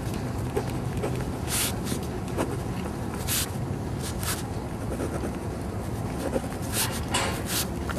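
Pen writing on lined paper: short scratchy strokes come and go over a steady low background rumble.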